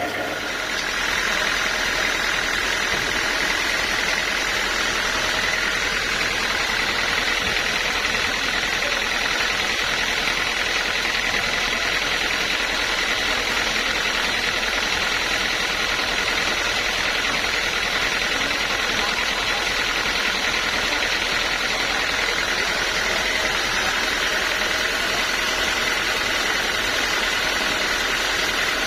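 Sawmill machinery running steadily, a constant mechanical noise with a high whine and no changes in load.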